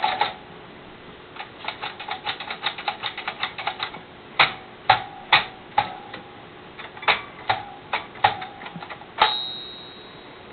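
Soviet 'Moskva' (Moscow) manual typewriter being typed on: a quick run of key clacks, then slower, separate, louder strikes, some with a short metallic ring. A last loud strike near the end leaves a high ringing tone fading over about a second.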